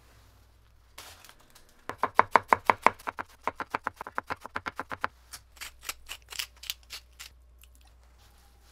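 Kitchen knife finely shredding cabbage on a wooden cutting board: fast, crisp strokes about six a second for some three seconds, then slower, lighter strokes that stop about two seconds later.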